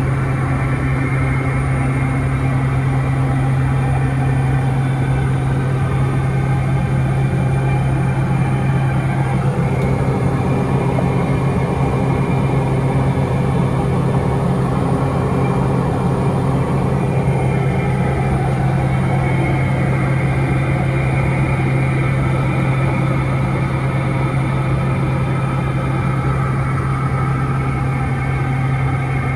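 Cabin noise of a Piper Meridian in cruise flight: its Pratt & Whitney PT6A turboprop and propeller making a loud, steady drone with a deep constant hum.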